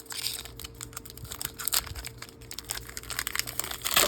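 Trading cards being handled and flipped through by hand: a run of small, irregular clicks and rustles of card stock sliding against card stock, with a louder rustle near the end.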